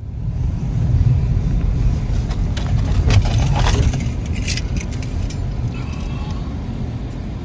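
Car driving slowly over packed snow, heard from inside the cabin: a steady low rumble of engine and tyres, with a few sharp crackles and clicks about three to four seconds in.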